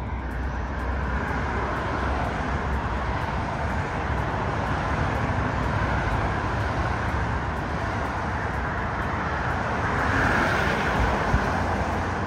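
Steady outdoor rumble and hiss of wind and road traffic, swelling slightly near the end, with the Amtrak Downeaster push-pull passenger train running in the distance.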